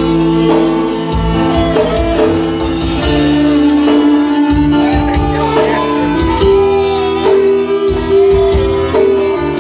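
Instrumental break of a pop love song: a held melody line over bass, guitar and a steady drum beat.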